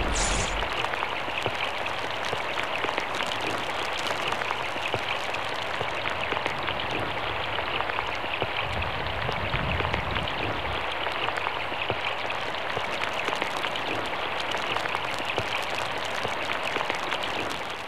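Steady rain pattering, an even hiss of many small drops falling. A short swish sounds right at the start.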